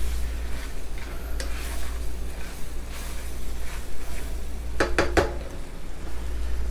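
A spatula stirring and scraping caramel-like bananas Foster sauce in a nonstick skillet, the hot sauce sizzling. About five seconds in, three quick sharp knocks of the spatula against the pan.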